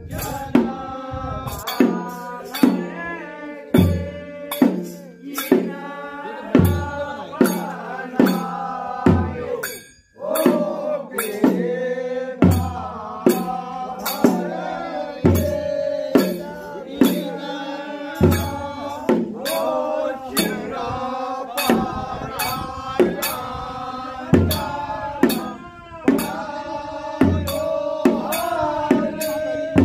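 A group of men singing a Kumaoni hill Holi song in chorus, over a steady beat of drum strikes and cymbal clashes, about three beats every two seconds. The song pauses briefly about a third of the way in, then goes on.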